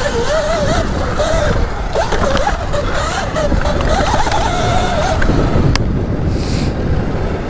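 Electric dirt bike's motor whining, its pitch rising and falling with the throttle for about five seconds, over heavy wind rumble on the microphone while riding. A single sharp click sounds about six seconds in.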